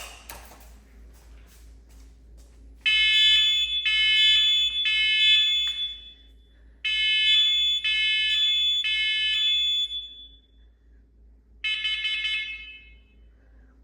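Fire-alarm sounder set off with its test button: a click, then about three seconds in a buzzy, high alarm tone sounds in two runs of three roughly one-second tones with a short pause between them, and one more burst near the end.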